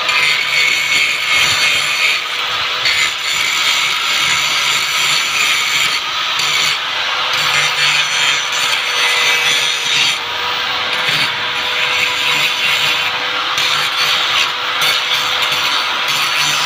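Handheld electric angle grinder running continuously, its disc grinding against a rusty steel frame: a steady motor whine under a rough, hissing grind that dips and swells a little as the pressure changes.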